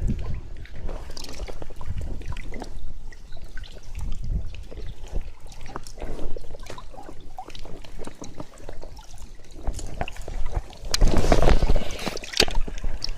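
Water sloshing and trickling right at the microphone around a float tube, with many small irregular clicks and a louder splashy stretch about eleven seconds in.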